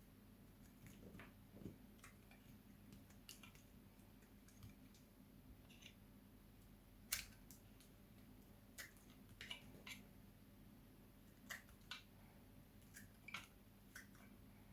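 Knife cutting into dry bar soap: scattered, irregular crisp clicks and crackles, with one sharper crack about seven seconds in.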